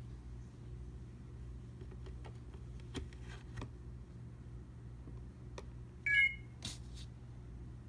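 A few sharp plastic clicks as an iPhone is handled and seated on the speaker dock's connector, then a short electronic chime just after six seconds in as the docked phone connects and starts charging, followed by one more click.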